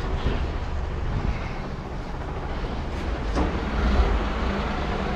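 Heavy recovery truck's diesel engine running under hydraulic load as the underlift boom is driven in by remote control. A short clunk comes about three and a half seconds in, and a steady hum joins the rumble near the end.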